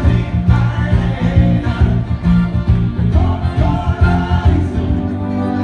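Live party-band music played loud over a PA, with a steady beat, bass and strummed acoustic guitar.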